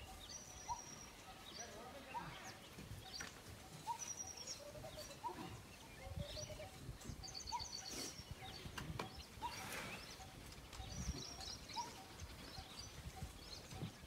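Outdoor birdsong ambience: birds chirping in short notes every second or two, with bursts of high twittering now and then, over a faint low rumble.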